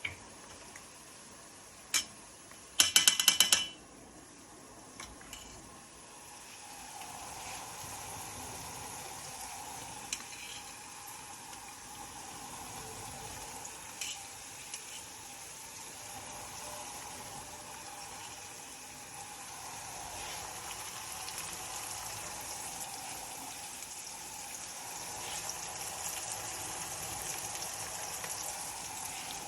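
Food frying and sizzling in a pan with a steady hiss that grows louder after about six seconds. A brief loud rattling burst comes about three seconds in.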